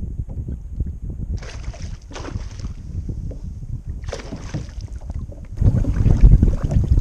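A hooked Spanish mackerel splashing at the surface beside a kayak in a few short bursts, over a steady low rumble of wind on the microphone. The wind rumble grows much louder about five and a half seconds in.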